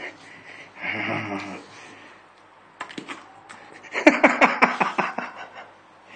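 Continental Bulldog making short breathy, grunting vocal sounds as it begs for a snack: one burst about a second in, then a quick run of short pulses about four seconds in, around seven a second.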